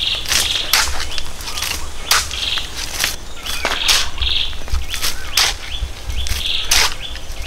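Short-handled hoe scraping and chopping into stony soil, roughly twice a second, with dirt and pebbles scattering. Short high chirps sound between the strokes.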